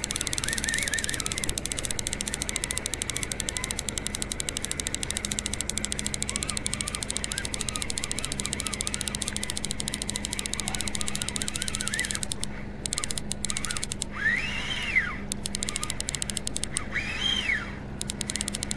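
Fishing reel ticking rapidly over a steady low boat-motor hum. About two-thirds of the way through, the ticking drops out for a few seconds and two short whistling tones rise and fall.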